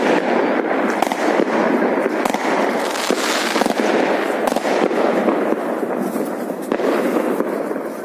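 Many fireworks going off at once: a dense, unbroken crackle of bangs and pops.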